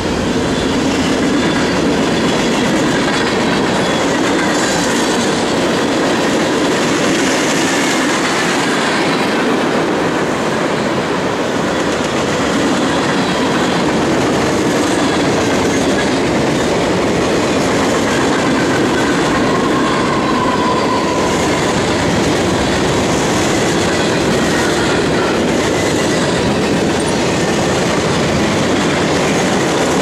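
Freight cars (covered hoppers and boxcars) rolling past at close range: a steady clatter of steel wheels over the rail joints. A brief thin squeal sounds about two-thirds of the way through.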